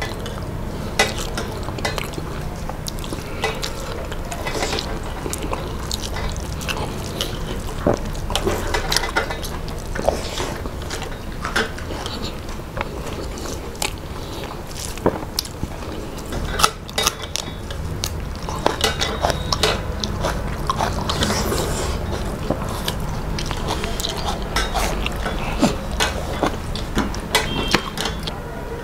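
Two people eating rice and mashed vegetable dishes with their hands: chewing and mouth sounds, with fingers mixing rice on steel plates and scattered clicks and clinks of the metal dishes.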